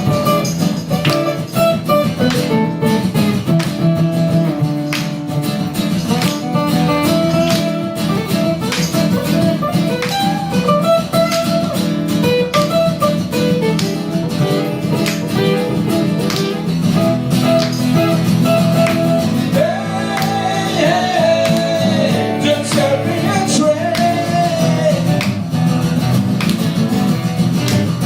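A live band playing an instrumental passage of a rock song, guitars to the fore over a steady beat, with a lead melody line that bends in pitch in the second half.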